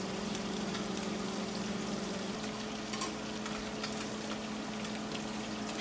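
Fish fillets sizzling as they pan-fry in hot oil in a skillet, with a steady low hum underneath.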